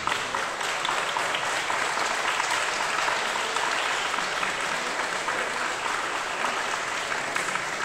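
Applause: many hands clapping steadily, echoing in a large sports hall.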